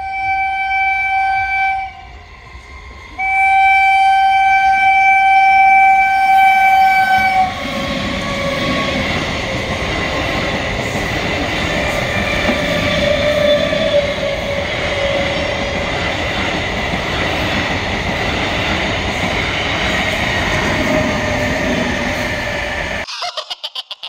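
Indian electric multiple-unit passenger train sounding its horn twice, a short blast and then a longer one, then passing close by at speed with a steady rush of wheels on the rails and coaches rattling. The sound cuts off abruptly near the end, replaced by a short burst of rapid pulsing.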